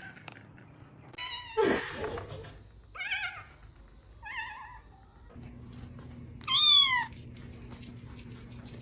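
Cat meowing: three short meows in the first half, then a loud, longer meow that falls in pitch, over a steady low hum that starts about halfway through.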